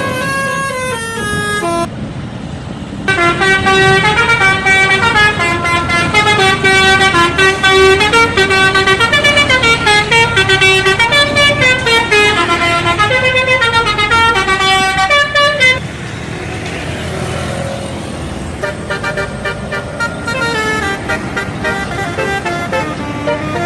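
Indonesian bus 'telolet' horn, a set of electric trumpet horns playing a quick multi-note tune. A short phrase, a brief break, then a long loud stretch of melody before it drops to quieter, scattered notes over road rumble in the last third.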